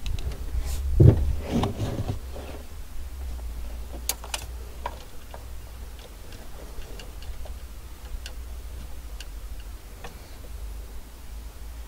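Light clicks and taps of hands handling wiring behind a car boot's trim panel, with a louder knock and scuffle about a second in, over a low steady rumble.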